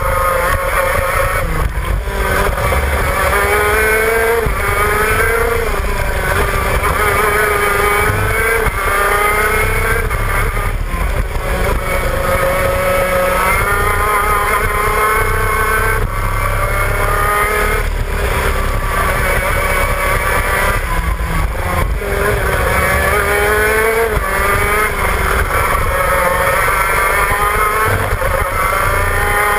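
Shifter kart's two-stroke engine at race pace, heard on board. Its pitch climbs again and again as it revs out, then drops sharply at each gear change and when braking for corners.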